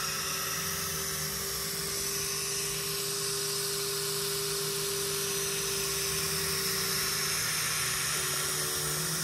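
Diode laser cutter cutting through thin plywood: its stepper motors and fans give a steady whine over a high hiss. The pitch of the whine shifts slightly about eight seconds in, as the head's movement changes.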